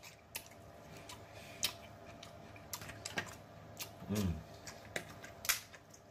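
Crab legs being picked apart by hand: scattered sharp clicks and crackles of shell. A short hum from the eater about four seconds in.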